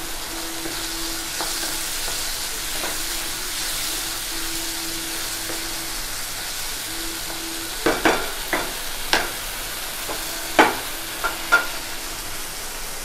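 Onion and tomato masala sizzling in a non-stick pan as a wooden spatula stirs it. From about eight seconds in, a handful of sharp knocks as the spatula strikes the pan.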